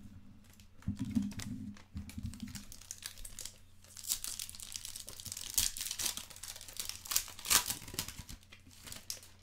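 Foil wrapper of a Select Soccer 2016/17 trading-card pack crinkling and tearing as it is ripped open, loudest in the second half. There are a few soft thumps from handling in the first couple of seconds.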